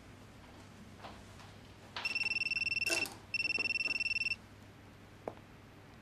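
Mobile phone ringing: a steady, high electronic ringtone sounding for about a second, twice with a short gap, starting about two seconds in and starting again at the very end. A few faint clicks of kitchen handling before and between the rings.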